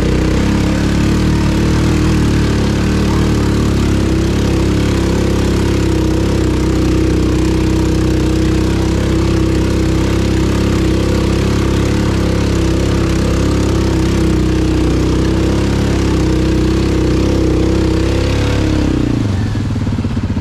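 ATV engine running at steady, held revs, with the revs falling away near the end.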